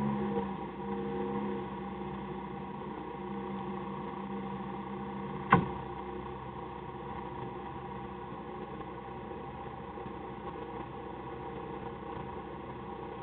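Citroën AX rally car's engine idling steadily while the car sits stationary, with a slight lift in revs in the first second or so. A single sharp click sounds about five and a half seconds in.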